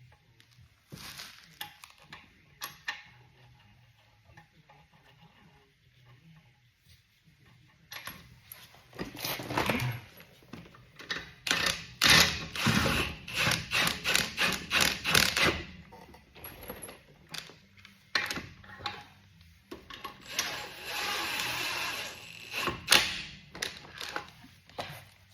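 Workshop tool clatter: sharp metal clicks and knocks, with a close run of rapid knocks in the middle and a stretch of steady rushing noise near the end.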